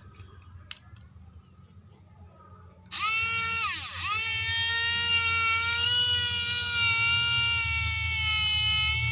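Small 'racing no. 3' DC hobby motor, not yet treated, switched on from a charged battery about three seconds in and running with a loud, steady high whine. Its pitch sags briefly right after start-up, then settles. A few faint clicks come before it starts.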